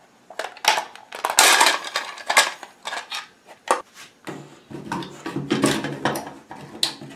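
Plastic shredder housing being pulled apart and handled: an irregular run of hard plastic clicks and knocks, with scraping about one and a half seconds in and rubbing in the second half.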